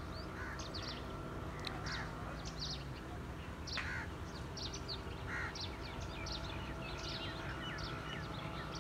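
Small birds chirping in many short, quick calls throughout, over a faint steady low hum.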